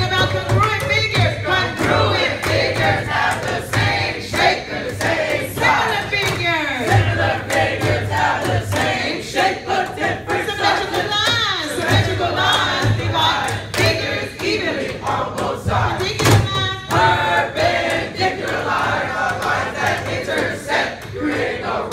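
A group of teenage boys chanting and singing a geometry song together over backing music with a pulsing beat.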